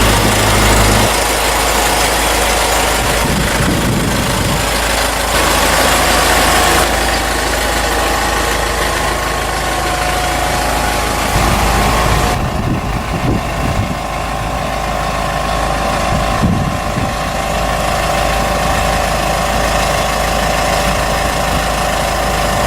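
Pepper-harvesting machine running in the field: a steady engine with mechanical noise. The sound changes abruptly about a second in and again about twelve seconds in.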